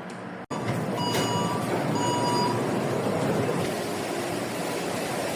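Metro train running: a loud, steady rumble with brief high tones about one and two seconds in.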